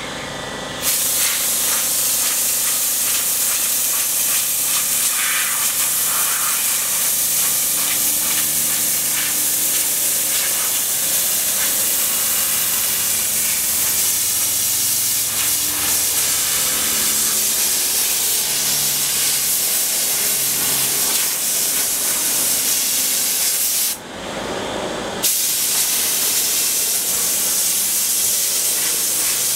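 Compressed air from a blow gun hissing steadily as sanding dust is blown off a table, cut off for about a second near the end and then resumed.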